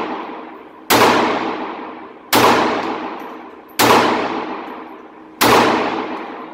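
Glock 42 .380 pistol fired four times, a shot about every one and a half seconds, each shot trailing off in a long echo off the concrete of an indoor range.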